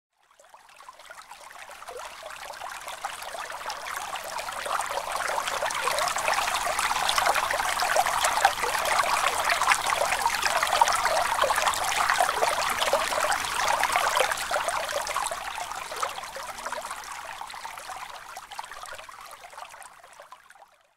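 Running water trickling and splashing, a steady hiss that fades in over the first few seconds and fades out near the end.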